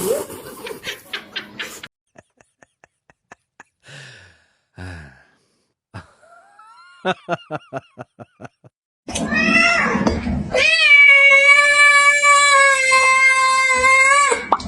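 A cat giving a long, loud, steady yowl of about four seconds in the second half. Before it come scattered clicks and a few short, faint calls.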